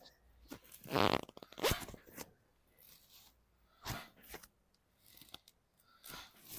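A patient on a chiropractic table breathing out long and rasping on cue, in several separate breaths, with rustling of clothing against the table.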